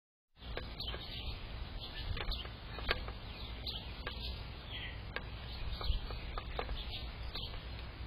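Small songbirds chirping, a quick run of short, sharp chirps, over a steady low rumble.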